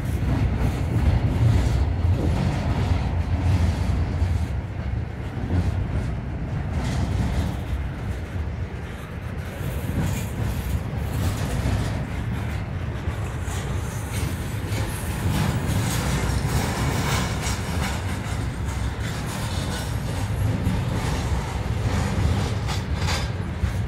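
Double-stack intermodal well cars of a freight train rolling past: a steady low rumble of steel wheels on rail, with clicks over the rail joints. A high-pitched wheel squeal joins about ten seconds in.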